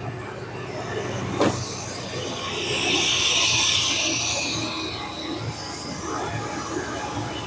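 1990 Chevrolet C1500 pickup's engine running at idle just after being started, with a sharp click about a second and a half in and a hiss through the middle.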